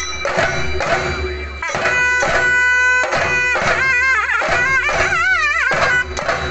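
Chenda drums beating with a wind instrument. A little under two seconds in, the wind instrument holds one steady note, then plays a wavering melody that slides up and down in pitch.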